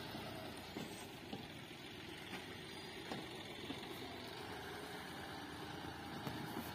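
Tractor engine running steadily while its front loader drives the bucket into a manure pile, with a few light knocks.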